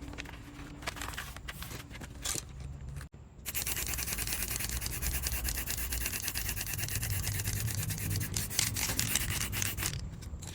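Hand scraping on a surface: slower separate rubbing strokes, then about three and a half seconds in, fast steady back-and-forth scraping many strokes a second, stopping just before the end.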